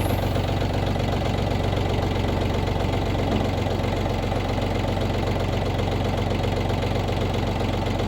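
Diesel-sounding engine of the bucket loader used to lift the vehicle body, running steadily with a fast, even chug.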